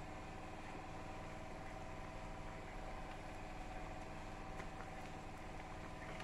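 A steady mechanical hum with several fixed tones, like a motor or engine running at constant speed.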